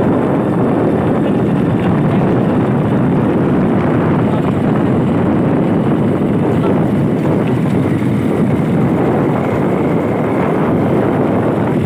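Steady riding noise of a motorcycle on the move: wind buffeting the microphone over the engine running.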